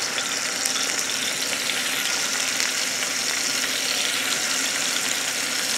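Sea scallops searing in hot extra virgin olive oil in a nonstick Teflon frying pan: a steady sizzle.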